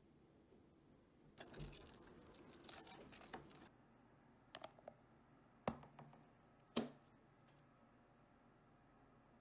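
Plastic rustling and crinkling for about two seconds, then a few light clicks and two sharp snaps about a second apart as the clip-lock lid of a plastic food-storage container is latched shut.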